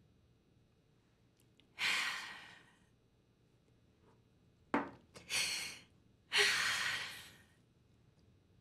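A woman breathing heavily while fighting back tears: three long, sighing breaths, about two seconds in, around five seconds and near six and a half seconds, with a brief click just before the second.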